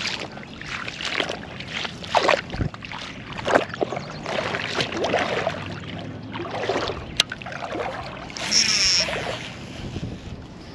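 Irregular rustling and scraping of handling noise from fishing gear and clothing rubbing near the camera's microphone, with a sharp click about seven seconds in and a brief high squeak near the end.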